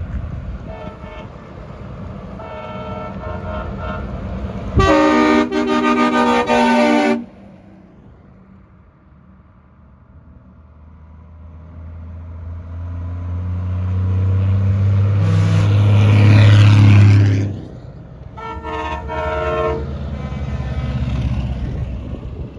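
Heavy trucks passing and sounding multi-tone air horns. A loud horn blast comes about five seconds in and lasts about two seconds. Then a truck's deep engine drone swells as it passes close and drops away, followed by another horn blast.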